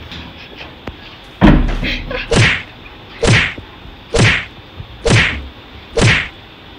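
Blows of a beating behind a closed door: one heavy thump, then five sharp whacks about a second apart.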